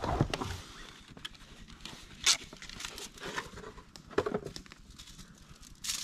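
Faint rustling and handling sounds with one sharp click a little over two seconds in; right at the end aluminium foil being pulled off its roll starts to crackle.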